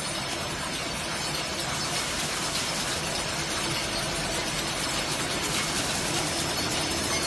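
Automatic plastic-cutlery and napkin flow-wrap packing machine running: a steady, dense mechanical clatter.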